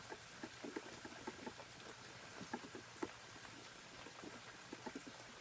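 Faint rain falling, with scattered light drip ticks.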